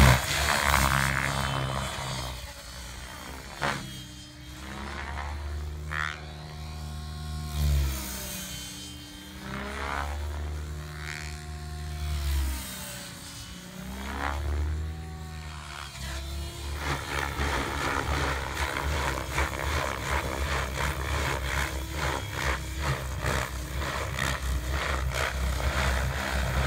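700-size RC helicopter flying hard 3D manoeuvres: rotor blades chopping and the drive whining, its pitch swooping down and up again and again as the heli turns and passes. It is quieter while the helicopter is high up in the middle, and louder and rougher again as it comes back low.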